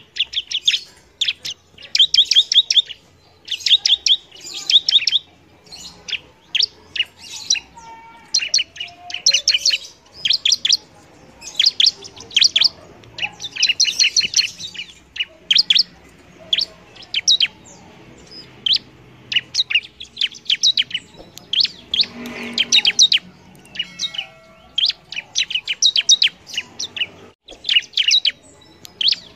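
Bar-winged prinia (ciblek) singing vigorously: phrases of rapid, sharp, high chirps, each burst a quick run of notes, repeated one after another with short gaps between.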